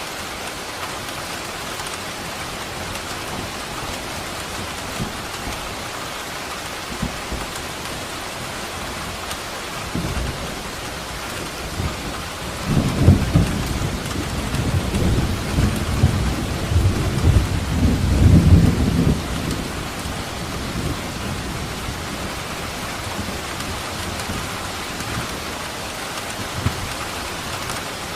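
Steady rain falling, with a long roll of thunder that builds about a third of the way in, rumbles loudly for several seconds and dies away again.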